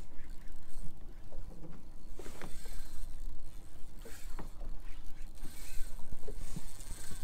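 Water lapping and slapping against the hull of a small drifting boat, in scattered light knocks over a steady low rumble.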